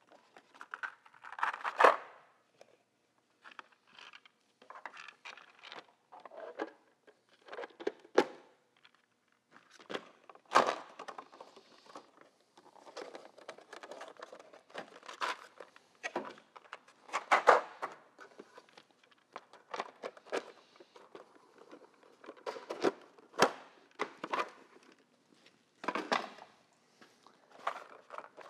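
Plastic packaging and blow-molded plastic socket trays being handled and pulled apart: irregular clicks, crinkles and clacks of hard plastic, with several louder knocks as pieces are set down.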